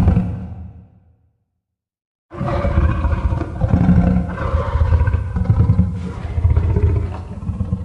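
Godzilla roar sound effect: the tail of one roar dies away in the first second, and after about a second of silence a long, deep roar starts abruptly, swelling and ebbing several times before fading out at the end.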